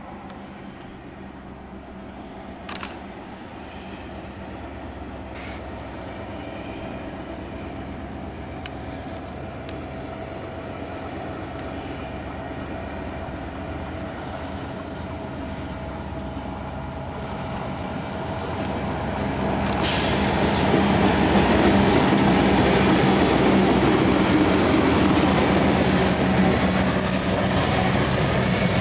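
Two EMD SD40-2 diesel locomotives running light, their two-stroke V16 engines growing steadily louder as they approach until they are loud and close about two-thirds of the way in. A high steady wheel squeal on the curve rises along with them.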